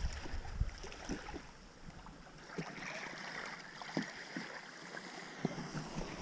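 Plastic sit-in kayak dragged by its bow up a wet, muddy shore: a scraping hull with scattered light knocks, and water lapping at the bank.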